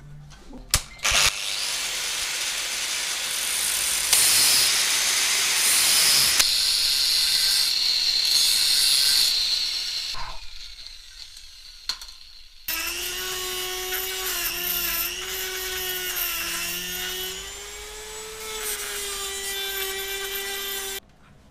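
Electric angle grinder working a piece of steel held in a bench vise: a loud hissing grind for about nine seconds, then after a short pause a steady whine that wavers slightly in pitch and cuts off suddenly near the end.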